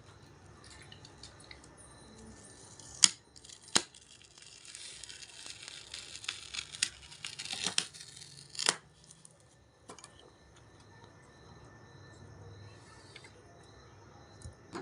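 An LCD writing tablet being taken apart by hand: two sharp plastic snaps about three seconds in, then several seconds of scratchy, hissing noise with small clicks through it, ending in a louder snap. One more click comes about ten seconds in.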